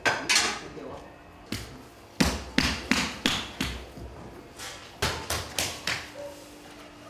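Porcelain clay being pounded and slapped: about a dozen sharp thuds in irregular bunches, each with a short ring.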